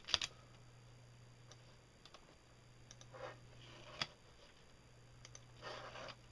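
Faint, scattered clicks of a computer mouse and keyboard during a copy and paste, a handful spread out, with one sharper click about four seconds in, over a low steady hum.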